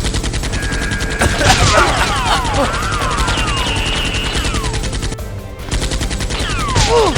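Rapid automatic-gunfire sound effect: two long bursts of fast, evenly spaced shots, broken by a short pause about five seconds in.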